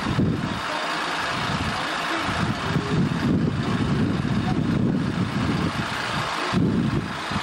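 Parked coach's diesel engine running at idle.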